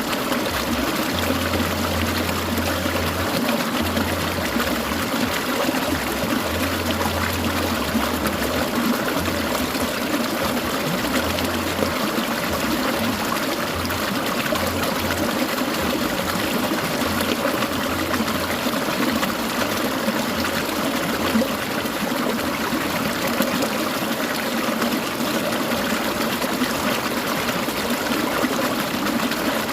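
Clear mountain stream trickling and babbling steadily.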